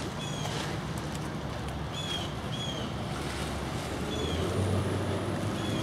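Steady outdoor rumble with wind noise on the microphone, and a bird's short, falling chirps repeating in pairs about every two seconds.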